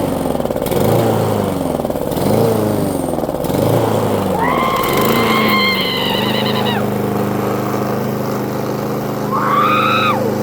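Push lawn mower's small petrol engine running unevenly, its speed surging up and down about once a second before settling into a steady run. Two high-pitched wavering whines sound over it, one about halfway through and a shorter one near the end.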